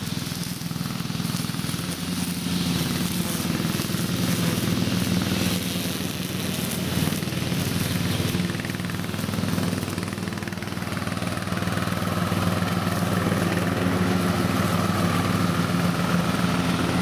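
Ride-on lawn mower's small engine running steadily. About twelve seconds in, a higher whine joins it.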